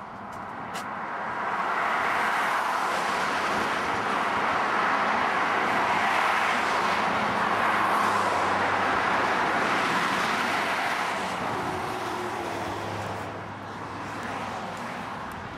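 Motorway traffic running past close by: a steady rush of tyre and engine noise that swells over the first couple of seconds and fades near the end.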